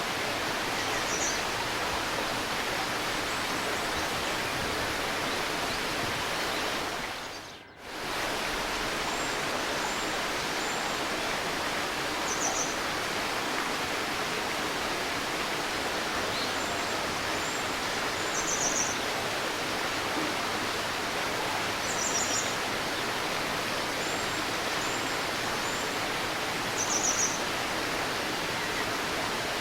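Steady rushing murmur of a river, with small birds giving short, high chirps every few seconds. The water sound fades out and back in about seven to eight seconds in.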